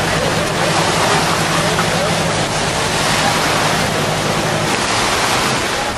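Steady rush of surf in shallow water with the even low hum of an old tractor's engine running, which fades out about three-quarters of the way through.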